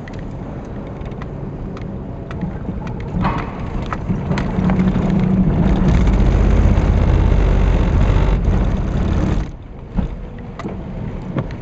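Vehicle driving off a car ferry: steady engine and road rumble with scattered knocks. It grows louder over several seconds, then drops suddenly about nine and a half seconds in.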